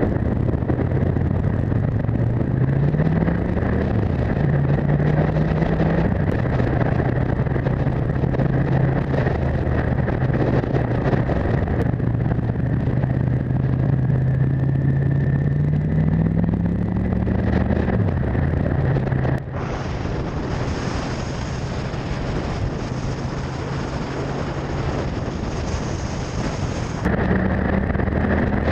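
Motorcycle engine running under way, heard from the bike itself with wind rushing over the microphone; the engine note rises several times as the rider accelerates. About two-thirds of the way in, the sound switches suddenly to a fainter engine under a steady high hiss, and the fuller engine note comes back near the end.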